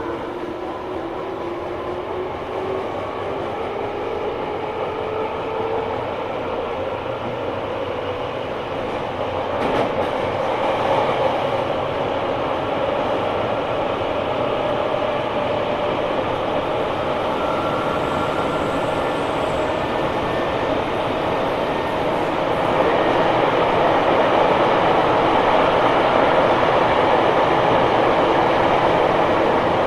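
Tobu 9000 series electric train (car 9206) accelerating under armature-chopper control: several traction-motor whine tones rise in pitch together over the first several seconds, then give way to steady running noise that grows louder. This car's motors made an unusual sound that the recordist believes came from a different motor fitted for a test.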